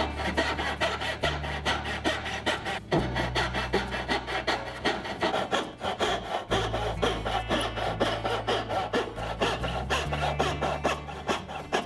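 Backsaw cutting by hand into a softwood board held in a vise, with a steady run of rasping push-and-pull strokes as the teeth bite through the wood.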